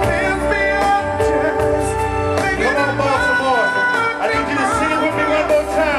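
Music with a singer: a sung melody over steady instrumental backing.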